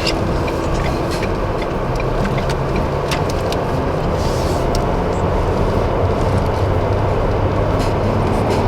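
Road noise heard inside a moving car: a steady rumble of tyres and wind, with a few sharp ticks.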